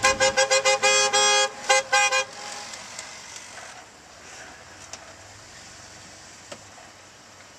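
Car horn honking: a rapid string of short beeps, one longer blast, then two more short honks, all within about two seconds. The horn then stops and only faint outdoor background remains.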